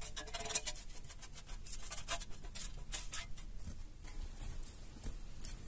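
A string of light clicks and scrapes as a utensil works the last pieces of air-fried chicken out of the air fryer basket into a glass dish. The clicks are thickest in the first three seconds and thin out after.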